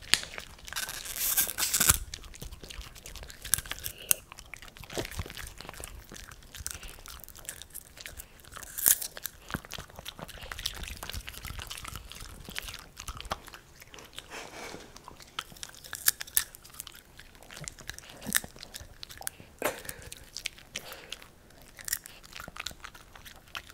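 Italian greyhounds crunching and chewing hand-fed popcorn right under a microphone: irregular crisp crunches and mouth sounds, with a burst of loud crunching near the start and single loud bites now and then.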